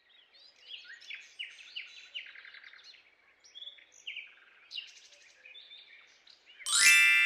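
Small birds chirping in quick, short notes, many of them sliding downward in pitch, over a faint hiss of forest ambience. Near the end a loud, bright ringing musical tone starts suddenly.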